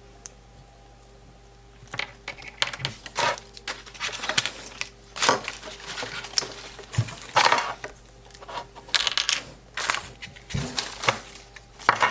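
Small hard plastic toy pieces being handled and clicked together during assembly: irregular sharp clicks and rattles, starting about two seconds in.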